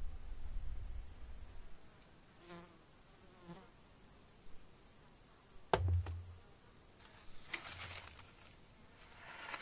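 An insect buzzing past twice, briefly, over wind rumble, then a single sharp knock, followed by dry scraping and rustling in the last couple of seconds.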